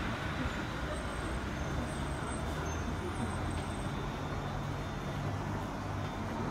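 Onboard running sound of an Osaka Monorail 1000 series field-chopper-controlled train: the steady rumble of its rubber tyres on the track beam with a low motor hum.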